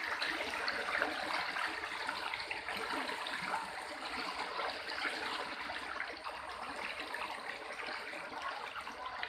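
Floodwater flowing steadily over a road in a continuous rushing, trickling wash.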